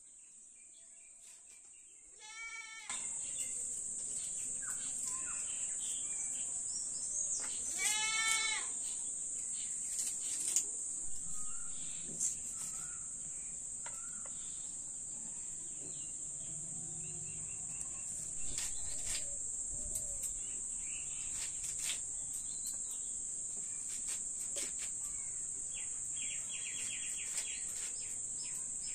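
A goat bleats twice, a wavering call about two seconds in and a louder one about eight seconds in, over a steady high hiss and scattered light knocks.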